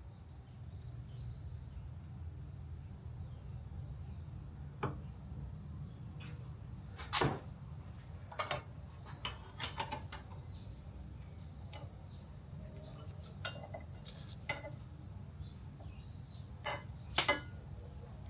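Scattered clicks and knocks of parts and tools being handled while spacers are fitted to square a drill press table, the loudest about seven seconds in and near the end, over a steady low hum with insects chirping faintly.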